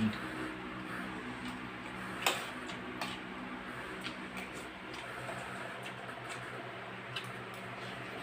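A spoon clicking against a plate now and then as food is scooped up and eaten, a few sharp ticks with the strongest about two seconds in, over a steady low hum.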